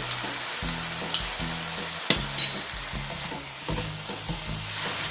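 Broccoli and carrots sizzling in a hot frying pan while being stir-fried, just after an orange juice and sweet chili sauce has been poured in. There is a steady hiss, with a few sharp clicks of the stirring utensil against the pan.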